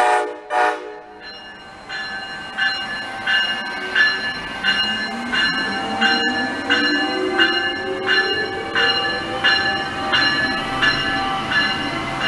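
Amtrak ACS-64 electric locomotive pulling into the station with its bell ringing steadily, about one and a half strokes a second, over a faint low whine that slowly rises in pitch.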